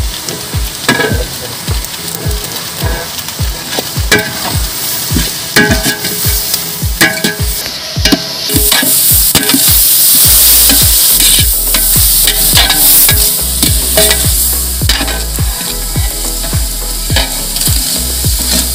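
Onions frying in oil in a large aluminium pot, sizzling, while a long ladle stirs and scrapes them in repeated knocks against the pot. The sizzle grows louder about halfway through.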